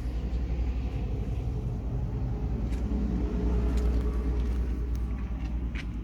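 Strong wind buffeting the microphone: a loud, deep, gusting rumble.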